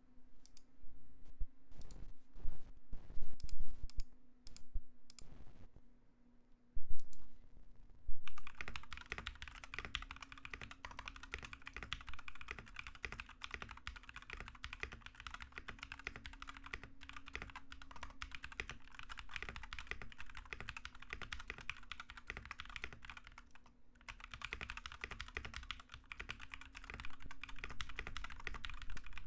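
Mechanical keyboard (Royal Kludge RK68 with foam, tape and band-aid stabilizer mods) typed on with stock, unlubed Ashkeebs Alexandrite linear switches. It starts with separate loud keystrokes, then turns to fast continuous typing, with a brief pause about three quarters of the way in.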